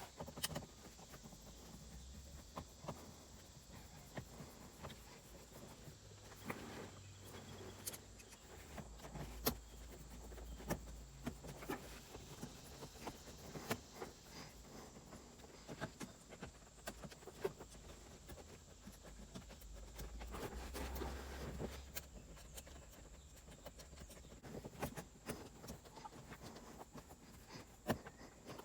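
Scattered small clicks and knocks from hands and a hand screwdriver working on plastic interior trim and fittings, with a couple of soft low rumbles of handling.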